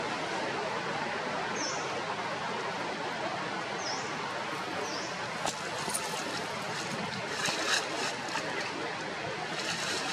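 Steady rushing outdoor background noise, with three short high chirps in the first half and soft clicking and rustling a little after the middle and again near the end.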